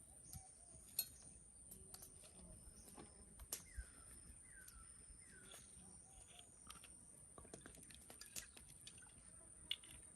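Near silence in the open air: a steady high tone, scattered faint clicks, and three short falling chirps about a second apart, typical of a bird calling.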